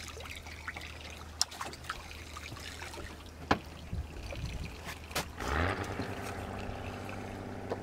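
Hooked piau splashing at the water's surface beside an aluminium boat as it is pulled out, with a few sharp knocks. About five and a half seconds in, a steady motor drone rises in and holds.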